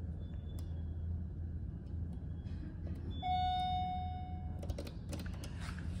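Elevator arrival chime: a single ding about three seconds in that rings for about a second and a half, signalling that the called car has arrived. A steady low hum runs underneath, and a few sharp clicks follow the chime.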